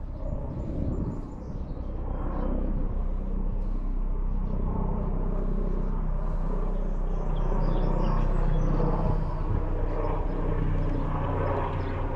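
A boat motor running steadily with a low, even drone, growing louder about two seconds in and then holding level.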